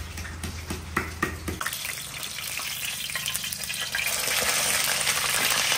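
Food frying in hot oil in a pan, sizzling steadily, with a few light utensil clicks near the start. The sizzle grows louder about four seconds in.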